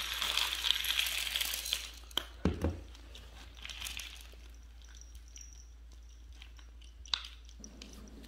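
Dry cat kibble pouring out of a jar and rattling onto a ceramic plate for about two seconds, followed by a few sharp clinks and the cat's quiet crunching as it eats.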